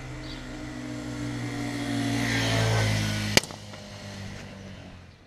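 Small motorcycle engine idling steadily, swelling a little louder partway through. A single sharp click comes about three and a half seconds in, after which the engine is quieter and fades.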